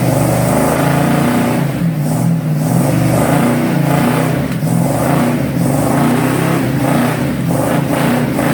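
A motor vehicle engine running loud and steady, its pitch rising and falling a little as it revs.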